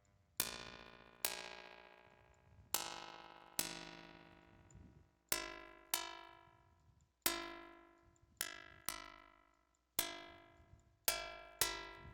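Karplus-Strong plucked-string synthesis from a software audio plugin: about a dozen synthesized plucked notes at varying pitches, each starting sharply and dying away with its bright overtones fading first.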